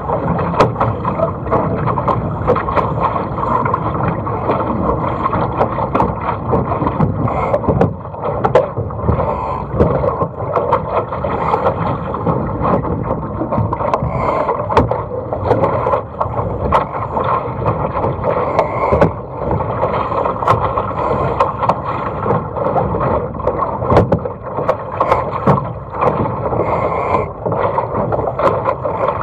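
Water rushing and slapping along the hull of a single-handed sailing dinghy under way, with wind buffeting the microphone and frequent sharp ticks of spray.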